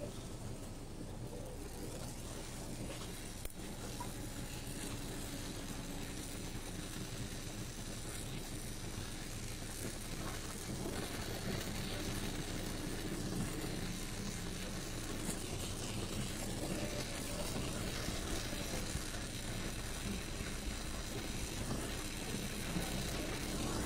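Gas welding torch flame hissing steadily as it heats a thin aluminium tube joint and aluminium filler rod, coming in about eleven seconds in over a steady low background noise.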